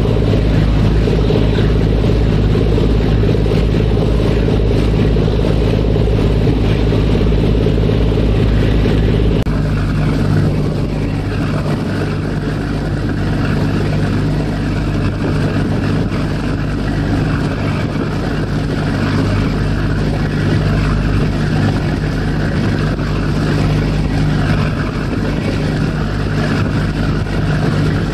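A ferry's engines droning steadily under a rush of wind and water noise. About nine seconds in the deep rumble drops suddenly, and the drone carries on steadily at a lower level.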